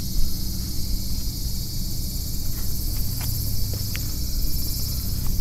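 Steady high-pitched droning of an insect chorus over a low rumble, with a few faint short chirps about three and four seconds in.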